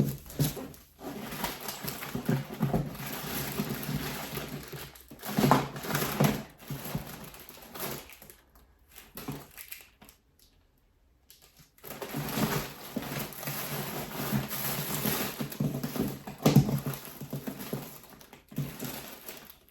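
Packaging being handled: irregular crinkling and rustling, with a pause of a few seconds about halfway through.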